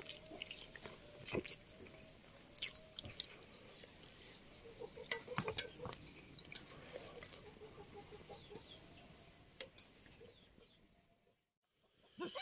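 Faint clinks of a spoon against a plate while eating rice, over a steady high drone of insects. The sound drops out briefly near the end.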